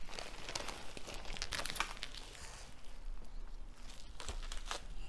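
Plastic packaging crinkling and rustling in irregular crackles as a bubble-wrapped package is pulled out of a plastic courier mailer bag and handled, with two louder bursts of crinkling.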